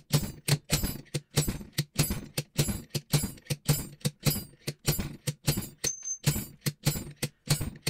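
Slide hammer on a blind bearing puller striking again and again, a steady run of sharp metal blows about three a second, knocking a worn front wheel bearing out of a motorcycle hub as it starts to move.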